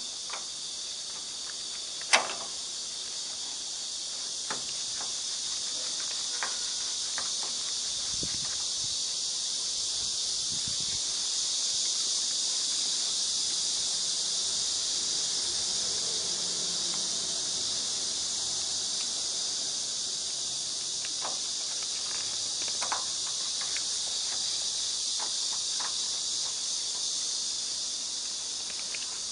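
Steady high-pitched insect chirring, with a few sharp clicks; the loudest click comes about two seconds in.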